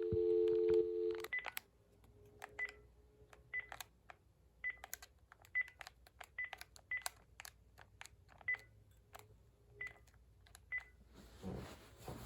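Panasonic cordless phone handset (KX-TG5432M) on the line: a steady two-tone dial tone for about the first second and a half, cut off by the first key press. Then ten keypad presses dialling a ten-digit number, each a soft click with a short beep, at an uneven pace.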